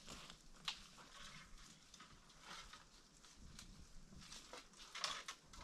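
Faint scattered rustles and light clicks on dry, stony ground strewn with leaves and acorns, with a slightly busier cluster about five seconds in.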